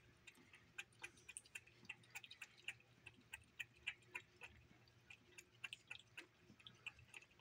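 A cat eating the last of a bowl of cereal and milk: a quick, irregular run of faint, small clicks and smacks, several a second.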